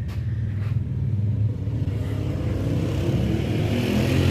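A motor running steadily with a low, pulsing rumble that grows brighter in the second half.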